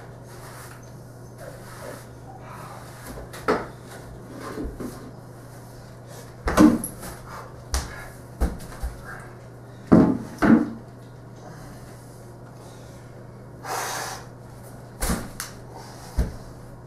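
Scattered knocks and thuds on a wooden floor from a crutch, a broom and a plastic bucket being handled, with short scrapes between them; a few of the knocks in the middle are much louder. A steady low hum runs underneath.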